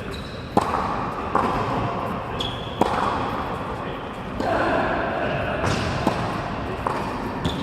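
Tennis balls being hit by rackets and bouncing on an indoor court: sharp pops at uneven intervals, about seven of them, with voices murmuring in the background.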